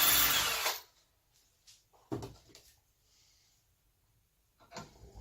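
Cordless drill running as it bores through a carburettor throttle shaft and its bracket, stopping suddenly under a second in. A sharp knock and a few light clicks and knocks of the part and tool being handled follow.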